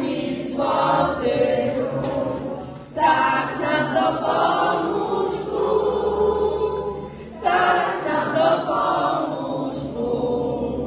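A group of voices singing a song, in phrases broken by short pauses about three and seven and a half seconds in.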